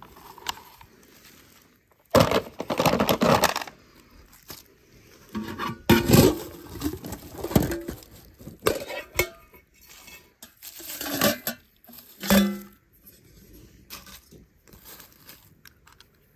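Toy cars and metal tin canisters being handled: a string of irregular clinks, clanks and rattles, loudest about two seconds in, around six seconds, and near twelve seconds.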